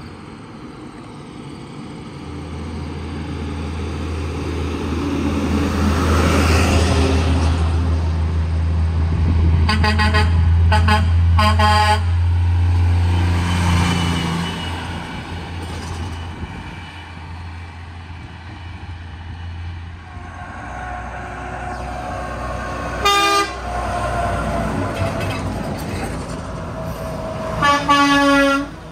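Semi truck diesel engine running loud as the truck drives past, with a quick series of short air-horn toots about ten seconds in. Later a second semi goes by and two more air-horn blasts sound, the last about a second long near the end.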